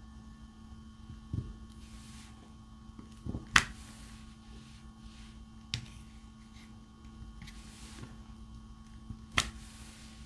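A few sharp clicks and taps from diamond painting work: the drill pen and plastic resin drills being handled. The loudest is about three and a half seconds in, and a steady low hum runs underneath.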